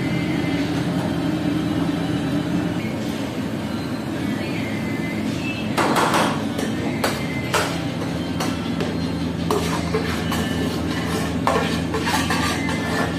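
Metal spoon knocking and scraping against a frying pan as foul is stirred and then scraped out into a serving bowl, with a cluster of sharp clanks about six seconds in and scattered knocks after. A steady low hum runs underneath.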